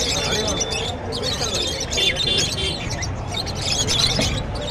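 Many small caged birds chirping and chattering together in clusters of high notes that come about once a second, over a low background murmur of voices.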